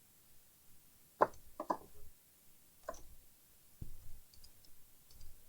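A handful of light clicks and taps from laptop parts and wires being handled, irregularly spaced, the sharpest about a second in.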